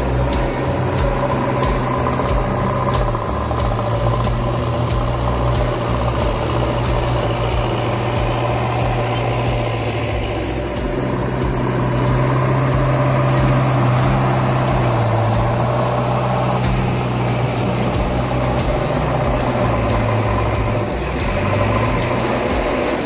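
Farm tractor's diesel engine running steadily while its front loader pushes and scoops gravel, the engine note dipping slightly now and then.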